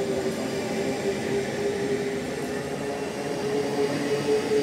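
SNCB AM08 (Siemens Desiro ML) electric multiple unit running past along the platform, with a steady rumble and a whine that rises in pitch partway through.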